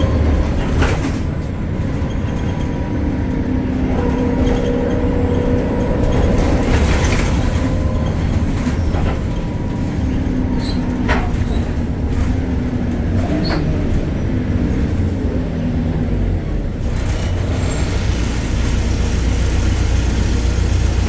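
BredaMenarini Avancity Plus city bus under way: steady low rumble of its Deutz diesel and ZF drivetrain, with a steady whine for the first several seconds and a few short knocks and rattles from the bodywork.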